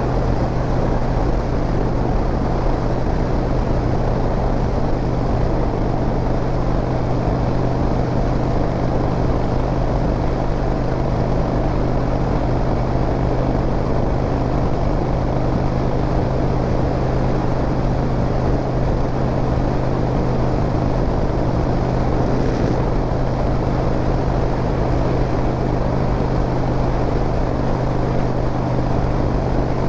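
Harley-Davidson V-twin motorcycle engine running at a steady cruise, its low note holding an even pitch throughout.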